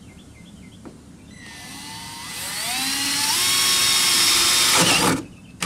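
Cordless drill boring a 3/8-inch hole through a boat console: the motor spins up with a rising whine about a second in, runs at full speed while cutting, then stops suddenly near the end.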